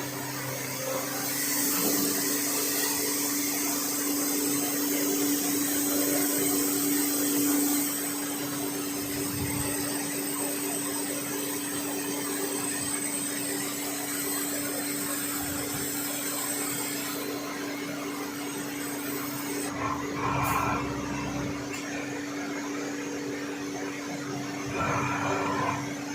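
CNC lathe running while turning a steel gear: a steady motor hum, with a loud high hiss over the first several seconds and two short louder bumps near the end.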